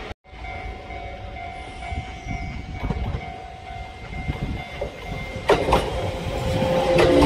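Kintetsu limited-express electric train approaching and growing louder, with its wheels clattering over the rails from about five seconds in and a low steady tone joining near the end.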